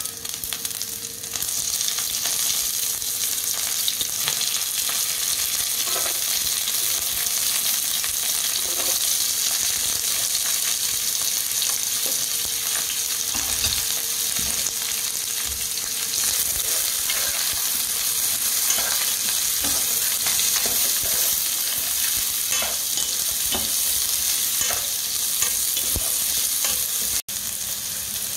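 Hot oil sizzling in a nonstick frying pan as dried red chillies, chopped onions and curry leaves fry in it, with scattered light taps and scrapes of a spoon stirring. The sizzle grows louder about a second in and cuts out for a moment near the end.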